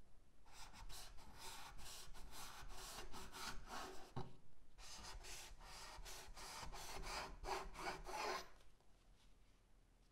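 Hatchet blade slicing through folded denim on a bamboo cutting board: two runs of quick rasping cutting strokes with the fabric and edge scraping the wood, and a short knock of the blade on the board about four seconds in.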